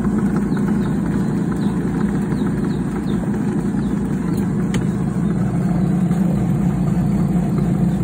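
Mini washing machine's motor running with a steady, even hum.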